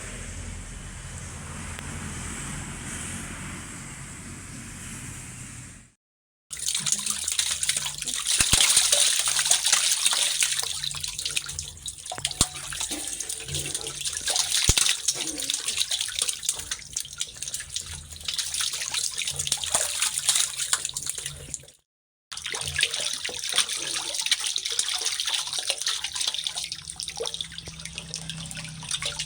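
Running, splashing water: a steady rush at first, then after two abrupt cuts a louder crackling splashing full of fine clicks.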